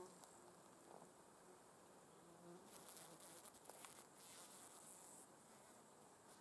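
Faint buzzing of an insect's wings, heard in short bursts at the start and again about two seconds in. From about three to five seconds in comes a dry, high-pitched rasping chirr.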